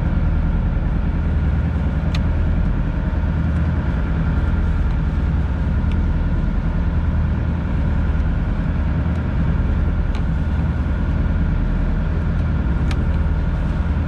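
Fishing boat's engine running steadily at idle, a low even drone, with a few faint sharp clicks.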